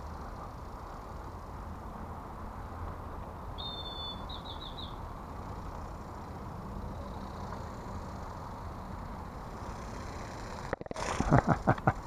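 Steady open-air background noise, with a small bird's brief call about four seconds in: a short whistled note followed by a quick trill of four notes. Near the end, a run of loud close knocks and rustles.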